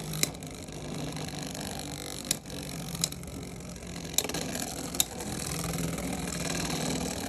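Beyblade tops spinning in a plastic stadium with a steady whirring hum, and about five sharp clicks as they strike each other or the stadium wall.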